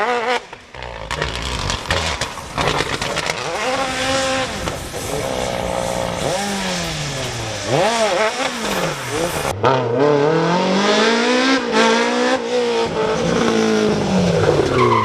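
Rally car engines revving hard at speed, the pitch climbing and dropping again and again through gear changes and pass-bys. The sound breaks off abruptly about ten seconds in and picks up on another run.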